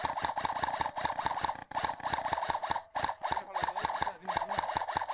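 Airsoft electric rifles firing full-auto in long bursts, a rapid even clatter of shots with a buzzing whine under it, broken by brief pauses where the trigger is let go.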